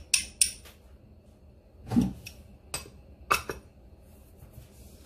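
Kitchenware clinking: a metal spoon knocking against a skillet and a small cup, a handful of sharp clinks with a duller knock about two seconds in.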